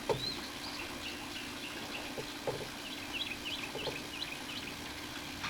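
Small birds chirping over and over, with a few light knocks of PVC pipe and fittings being handled and pushed together, the sharpest about the start. A steady low hum runs underneath.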